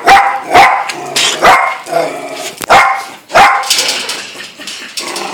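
A dog barking repeatedly: about five sharp barks in the first three and a half seconds, then quieter.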